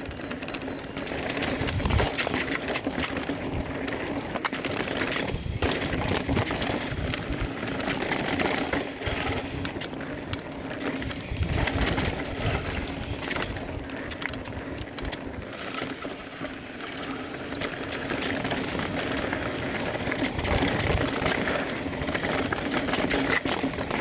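Mountain bike disc brakes squealing in about four short high-pitched bursts, on brand-new brake pads. Underneath runs the constant rattle and rush of the bike and tyres on a fast rough descent.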